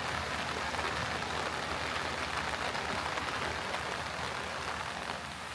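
Heavy rain falling steadily, a dense hiss of drops on the street.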